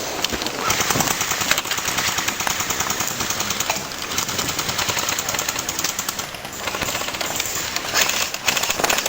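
Airsoft guns firing on full auto: a rapid, even rattle of shots in long bursts, with brief breaks about four and six and a half seconds in.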